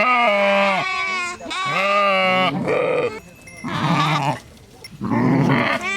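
Sheep bleating: about five separate baas one after another, the first two clear and drawn-out, the later ones shorter and rougher.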